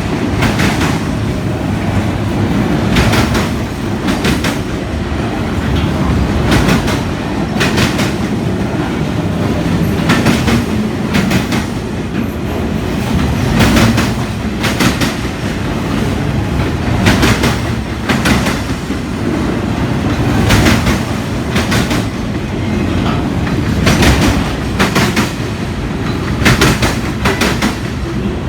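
Freight train of autorack cars rolling past, a steady low rumble with the wheels clicking over rail joints in repeated pairs and clusters every second or two.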